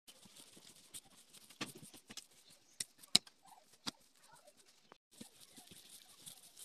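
Hands kneading soft chapati dough on a tabletop: light pats and squelches, with a few sharper slaps or knocks, the loudest about three seconds in.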